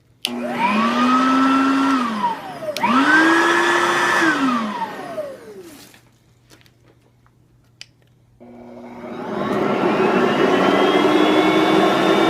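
Lightweight upright vacuum cleaners (a Riccar R10S and a Hoover WindTunnel Platinum) switched on and off to show their low and high speeds. A motor whines up and spins down twice, settling at a higher pitch the second time. After a few quiet seconds another vacuum motor spins up and runs steadily.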